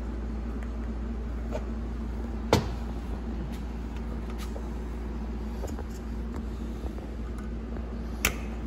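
Small metal clicks and ticks from snap ring pliers seating a snap ring over a valve in the bore of an E4OD/4R100 transmission pump. There are two sharp clicks, one about two and a half seconds in and one near the end, over a steady low hum.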